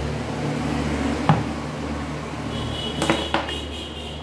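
A sharp knock about a second in and a short clatter of clicks about three seconds in, from power tools being handled and set down, over a steady low hum.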